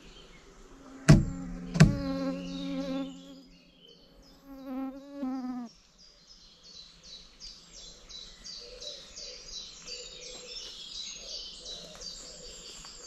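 Woodland ambience with insects chirping in rapid, high-pitched pulses through the second half. Early on there are two sharp clicks less than a second apart, followed by a low humming tone with overtones and then a brief wavering tone.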